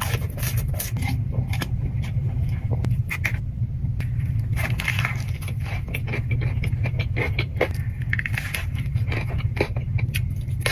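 Close-miked eating: chewing of crunchy food, full of irregular crackling clicks and scrapes, over a steady low hum.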